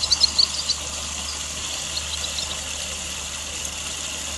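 Spring water running steadily from a well spout, a continuous hiss. Short high bird chirps come in a cluster at the start and again around two seconds in.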